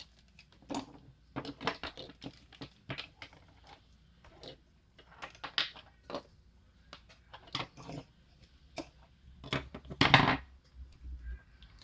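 Irregular small clicks, taps and knocks from the opened mini radio's plastic housing, speaker and parts being handled on a tabletop, with a longer, louder clatter about ten seconds in.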